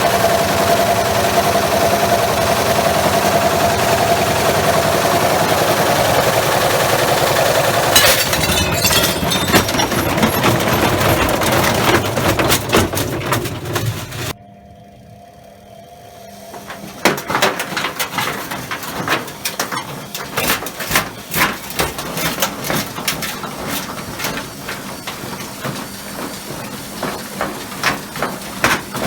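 Washing machine spinning with a heavy loose load such as bricks or steel banging in the drum: a steady whine first, then hard rattling knocks. The sound cuts out suddenly about halfway, then irregular clattering knocks start again.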